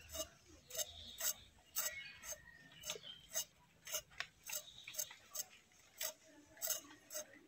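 Short sharp taps in a steady rhythm, about two a second.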